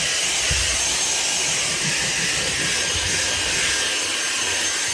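Dyson cordless stick vacuum running steadily in turbo (boost) mode, a high motor whine over a strong rush of air as it vacuums a floor mat.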